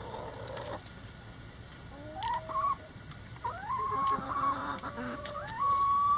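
Several chickens clucking and calling, their calls rising and wavering from about two seconds in, ending in one long held call.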